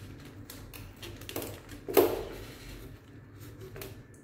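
A hand handling a styrofoam food tray: light clicks and rustles, with one louder knock about two seconds in.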